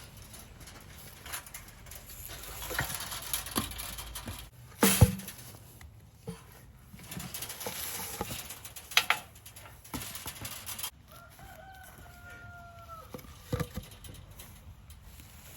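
Knocks and clatter of hands-on work hanging a field-fence gate, with one loud sharp knock about five seconds in. About eleven seconds in, a drawn-out farmyard animal call lasts roughly two seconds.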